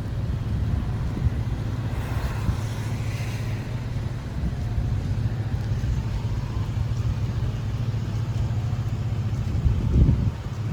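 Steady low rumble of a car at a standstill, with wind noise, a brief swell of hiss about two seconds in, and a louder low bump near the end.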